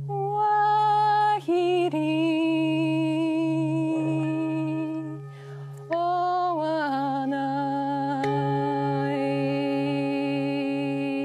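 A woman chanting long held notes with a slight waver, changing pitch a few times, over a steady, gently pulsing low drone, as in a ceremonial mantra.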